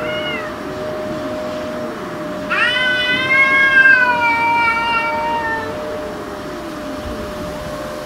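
Domestic cats yowling at each other in a territorial standoff with an intruder cat: a short yowl tails off at the start, then a long, wavering yowl begins about two and a half seconds in and slowly falls in pitch for about three seconds. A steady low tone and fainter low, sliding moans run underneath.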